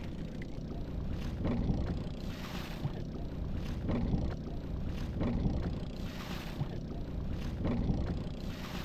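Small fishing boat at sea: a steady low rumble, with water washing against the hull in swells every couple of seconds and a few light knocks.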